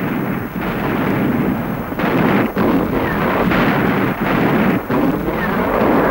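Battle din of artillery fire and shell explosions, a continuous rumble with a fresh blast every second or so.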